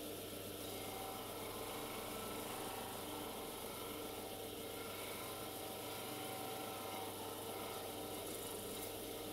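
Stationary disc sander running steadily: a motor hum with the hiss of a small piece of ash wood being pressed against the spinning abrasive disc.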